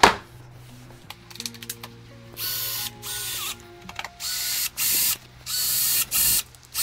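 A loud thump, then a cordless drill driving screws into the particleboard frame in about six short bursts of motor whine, each lasting under a second.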